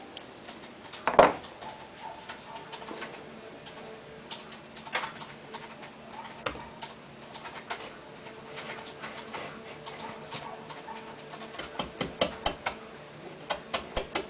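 Hand gouge cutting into a wooden board: scattered clicks and scrapes as the blade takes out chips, with one loud knock about a second in and a quick run of sharp clicks near the end.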